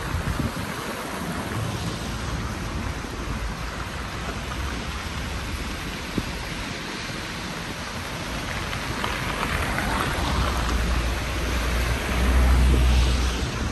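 Outdoor street ambience: a steady rushing noise, with a low rumble that swells and grows loudest near the end.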